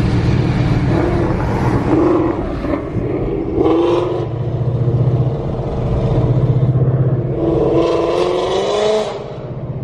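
Ford Mustang's Coyote V8 on a loud Corsa Extreme exhaust, droning low while cruising, with two rising pulls under acceleration about three and a half and eight seconds in.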